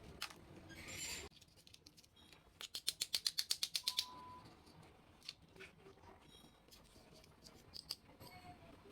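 Plastic toy doctor-set pieces being handled: a brief rustle about a second in, then a quick run of about a dozen sharp clicks lasting about a second and a half, followed by scattered light clicks and taps.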